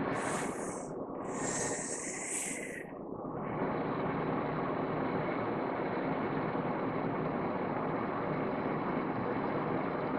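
A woman draws a deep breath in through her mouth as a freediving final breath, an audible hiss in two pushes over about three seconds. After that there is only a steady background hum.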